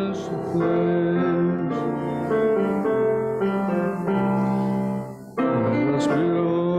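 A hymn being sung by the congregation with piano accompaniment, held notes moving from chord to chord, with a brief break between lines about five seconds in.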